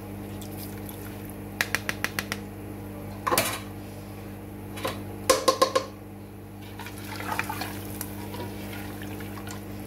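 A metal mesh strainer and a spoon knocking and clinking against a metal cooking pot: a quick run of light clicks, a louder knock, then four quick clinks, over a steady low hum.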